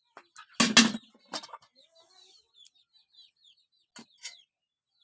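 Birds chirping: a quick run of short, falling chirps. A loud, brief noise comes about half a second in.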